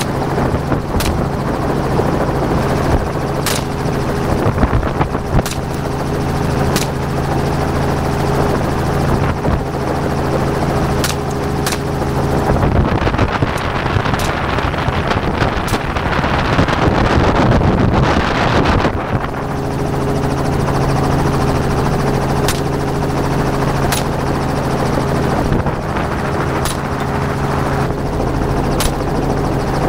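Helicopter in flight, its engine and rotor making a steady drone, with sharp cracks every second or two. For several seconds in the middle, a louder rushing noise covers the engine tone.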